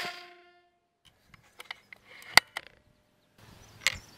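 The end of a Benjamin Bulldog .357 air rifle shot, a short ringing that dies away within half a second. After a brief silence come scattered sharp metallic clicks and small rattles, the loudest about two and a half seconds in and another near four seconds: the rifle being handled and worked for the next shot.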